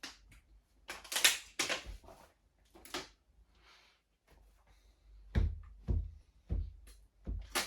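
Short breathy mouth sounds of someone sipping a hot drink, followed by a few dull knocks in the second half.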